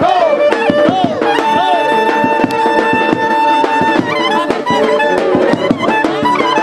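Traditional Balkan folk music played loud. A lead melody instrument plays quick bending, ornamented phrases, then holds one long note for a few seconds. Drum beats keep the rhythm underneath.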